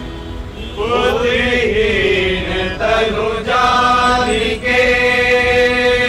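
A man's voice singing a Hindu devotional chant to Hanuman, with long held notes that bend in pitch, over strummed acoustic guitars. The voice comes in about a second in.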